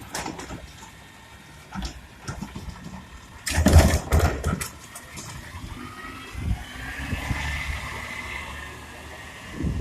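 Garbage truck working at the curb: its engine running, a loud clatter of knocks about three and a half seconds in, then a whine that rises and holds for a couple of seconds.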